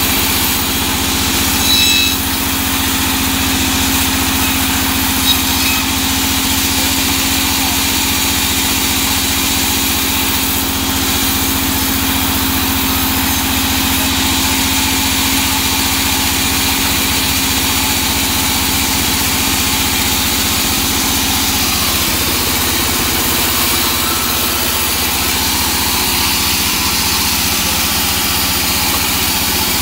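Large vertical band saw running while it cuts teak logs: a loud, steady machine noise with a low hum that fades about two-thirds of the way through.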